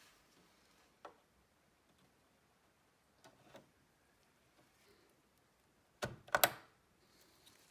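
Scattered clicks and knocks, likely from computer parts being handled during assembly. There is one click about a second in, two lighter taps around three and a half seconds, and a louder quick cluster of three or four knocks about six seconds in.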